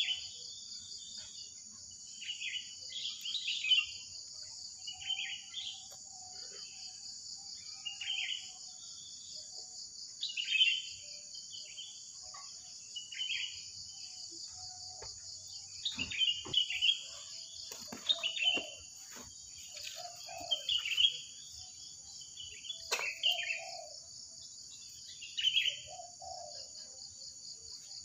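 Wild birds calling in the trees: short, high chirping phrases every second or two, answering one another, with some lower calls joining in the second half. A steady high drone of insects runs underneath.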